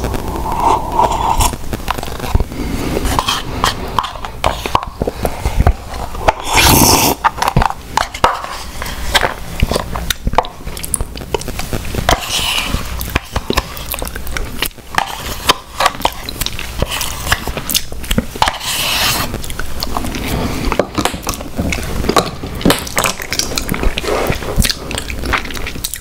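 Close-miked eating sounds: a plastic spoon scraping and clicking against the inside of a plastic cup, scooping out the last of a hot fudge sundae, with wet mouth sounds of eating the soft ice cream and fudge. Many short clicks and scrapes follow one another unevenly.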